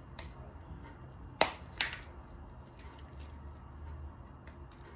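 Thin clear plastic orchid pot flexing and clicking as it is squeezed and worked to free a root-bound phalaenopsis: two sharp clicks about a second and a half in, with a few fainter ticks around them.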